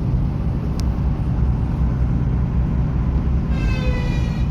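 Car driving: a steady low rumble of road and engine noise, with a short pitched sound, falling slightly, near the end.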